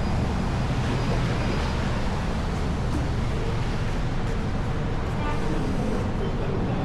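Steady low rumble of urban background noise in a parking garage, even throughout, with no distinct mechanical events.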